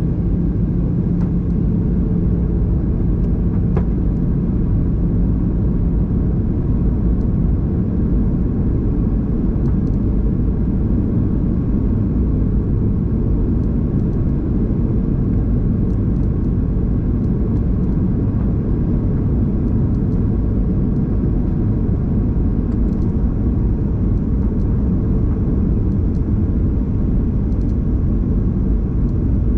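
Cabin noise of a Boeing 737 in flight on approach: a steady low rumble of engines and airflow. A low hum fades out in the first few seconds.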